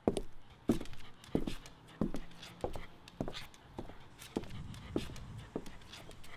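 Footsteps walking at a steady pace, about one and a half steps a second.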